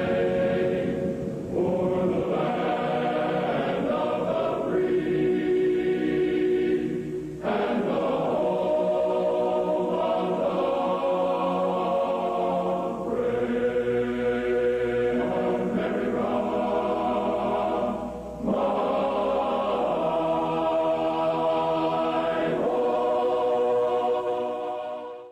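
Slow choral music: a choir holding long sustained chords that change every few seconds, fading out to silence at the very end.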